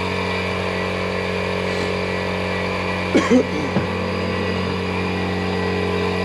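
Electric air pump running with a steady hum, pumping air into the side tube of an inflatable boat to bring it up to pressure.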